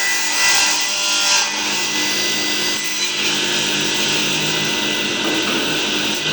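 Ts6-2 circular saw bench running, its blade mounted directly on the 4 kW motor shaft, cutting through wood. The cut is loudest from about half a second to a second and a half in, then the saw runs on steadily.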